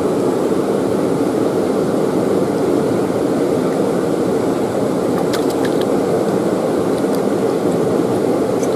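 Steady rush of fast-flowing river water over rocks, with a few faint ticks about five seconds in.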